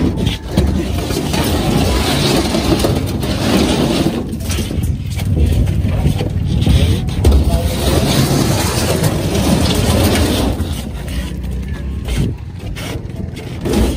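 Motorbike engine running under a heavy load of bricks, its level rising and falling.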